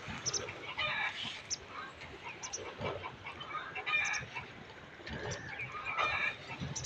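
Domestic fowl clucking in short calls every second or so.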